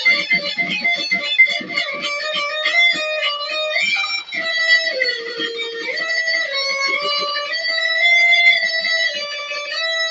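Electric guitar shredding: fast runs of notes for the first few seconds, then longer held notes with pitch bends.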